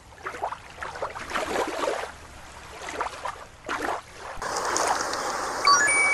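Water splashing in an orca show pool. About four seconds in, it gives way to the steady trickle of a shallow stream. Near the end comes a quick rising sparkle chime sound effect that ends on a held ding.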